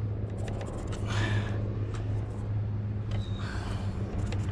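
A steady low hum, with two brief scuffing noises, about a second in and again past three seconds.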